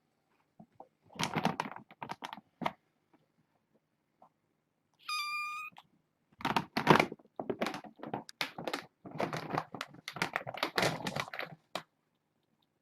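Irregular runs of light clicks and taps, and about five seconds in a single short high-pitched kitten mew.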